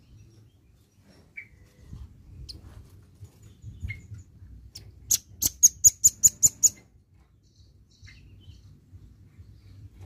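Velvet-fronted nuthatch calling: a few scattered single chips, then, about halfway through, a rapid run of about nine sharp, high notes lasting about a second and a half.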